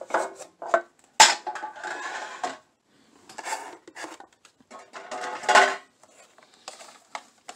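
A metal Pokémon card tin being handled: a sharp metallic clink about a second in, then crinkling rustles of foil booster pack wrappers being lifted out, in several short spells.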